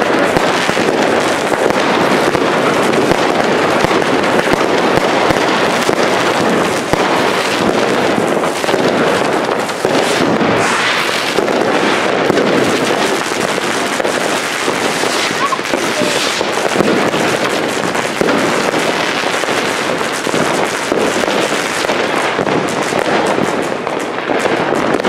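Fireworks and firecrackers going off without pause: a dense, steady crackle and popping of many charges.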